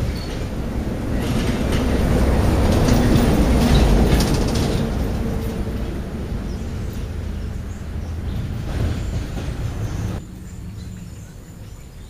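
Rumble of a passing vehicle that swells to its loudest about three to four seconds in, then fades and drops away sharply near the end.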